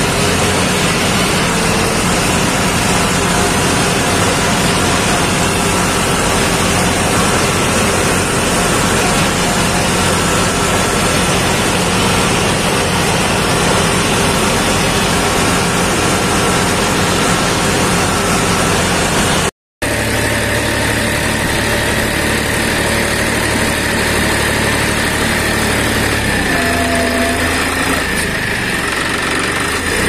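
Diesel farm machinery engine running steadily under load. About two-thirds through the sound cuts abruptly for a moment to a different engine sound, which carries a steady high whine over a low steady hum.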